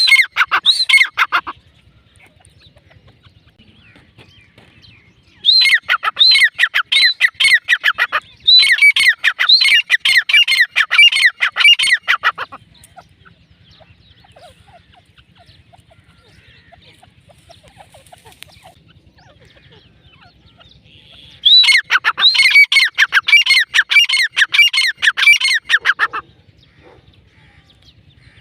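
Female grey francolin (teetar) calling: loud series of shrill, arched notes repeated several times a second. The calls come in four bouts of a few seconds each, separated by pauses.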